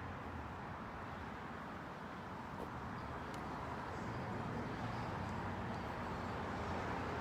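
Steady outdoor background noise: a low rumble under an even hiss, growing a little louder in the second half.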